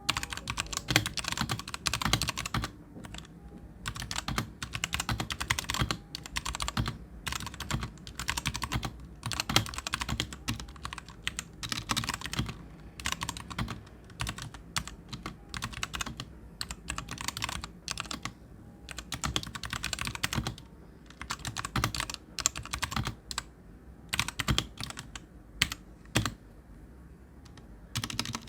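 Royal Kludge RK84 mechanical keyboard with RK brown tactile switches being typed on: quick runs of key clacks in bursts, with short pauses between them.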